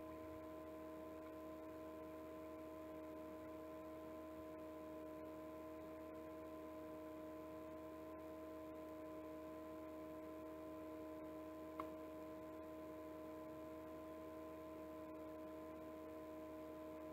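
Steady room hum made of several held tones over a faint low drone, with one small click about twelve seconds in.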